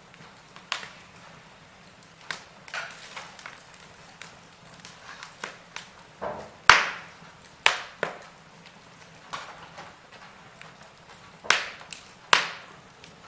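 Wood fire in a fireplace crackling: irregular sharp pops and snaps over a faint hiss, with a loud pop about halfway through and two more close together near the end.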